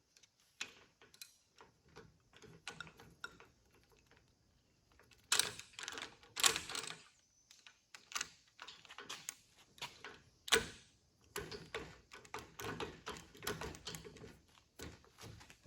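Irregular metal clicks and knocks of an AC hose and fitting being handled and set into the dies of a Mastercool 71550 AC hose crimper, with a few louder knocks and a quicker run of small clicks near the end.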